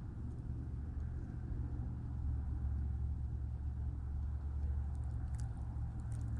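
Steady low rumble of a car being driven, heard from inside the cabin, with a few faint clicks near the end.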